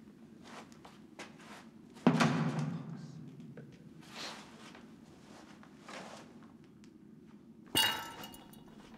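A heavy thump about two seconds in, a few fainter knocks, then a sharp clank with a brief metallic ring near the end.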